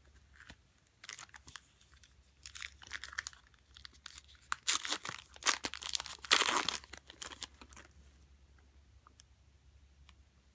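Foil wrapper of a trading card pack being torn open and crinkled, a run of crackly rustles that is loudest about five to seven seconds in.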